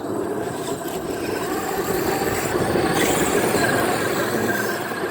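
Electric radio-controlled monster truck running: a steady whine from the motor and gears over tyre noise.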